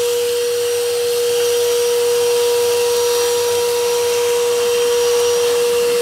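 Gaocheng GC-VC25L wet-and-dry vacuum cleaner running, a steady whine over the rush of air, as its hose sucks up dirt and small stones from a tiled floor. It is noisy with the sound of air, because it pulls air very fast.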